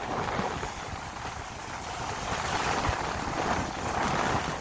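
Small ocean waves breaking and washing up the sand, a steady hiss of surf that swells a little later on, with wind rumbling on the microphone.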